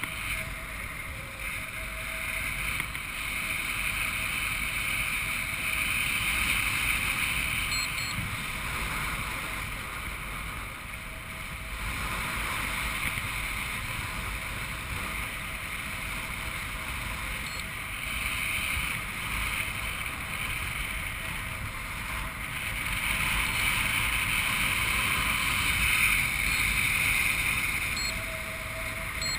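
Wind rushing over a skydiver's helmet-camera microphone during a parachute descent: a steady rush that swells and eases every few seconds.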